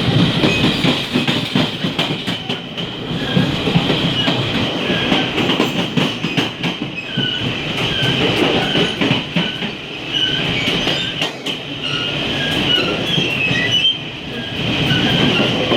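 Rumble and rattle of a moving passenger train at the coupling and gangway between two coaches, with irregular sharp clanks and knocks and a continuous high squeal over it.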